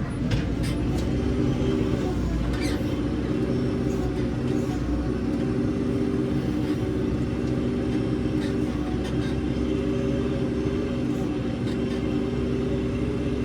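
JCB 3CX backhoe loader's diesel engine running steadily under load while digging, its pitch wavering a little, with scattered sharp clicks and knocks over it.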